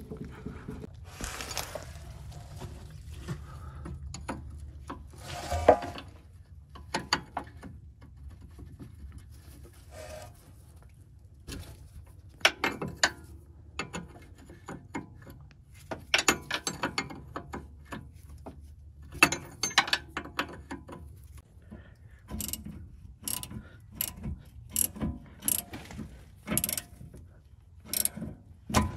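Ratchet wrench clicking, turning a puller to press a steering tie rod end out of its joint, in an even run of strokes near the end. Before that come scattered knocks and clanks of hand tools and steering parts, over a faint low rumble.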